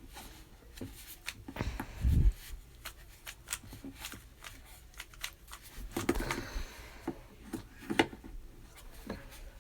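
Plastic Rubik's cube being twisted by hand: quick runs of clicking, rattling layer turns, with a low thump about two seconds in.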